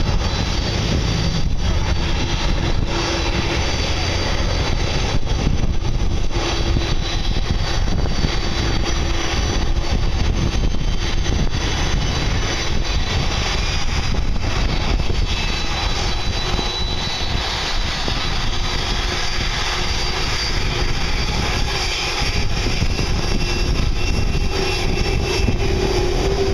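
Boeing 747-400's four jet engines running steadily as the airliner taxis and turns, an even rush with a thin high turbine whine held throughout.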